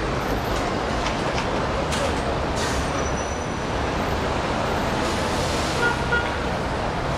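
Steady road traffic at an airport terminal curb, with cars and shuttle buses running past, and a brief hiss about two and a half seconds in.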